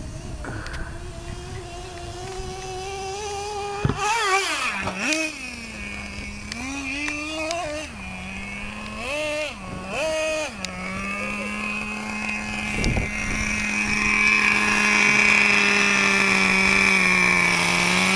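Traxxas Revo RC truck's small two-stroke nitro glow engine running. Its whine climbs for the first few seconds, then revs up and down in a string of quick blips. It settles to a steady note for the last several seconds, growing louder.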